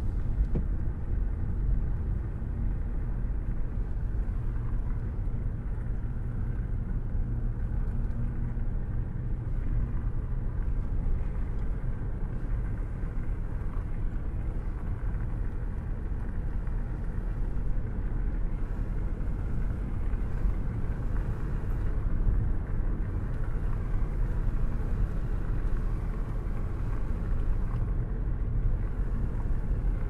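Steady low rumble of a moving vehicle.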